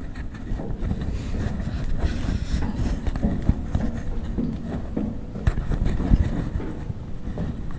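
Wind buffeting the microphone as a low, uneven rumble, with a few soft thumps of footsteps on bare concrete, the clearest about five and a half and six seconds in.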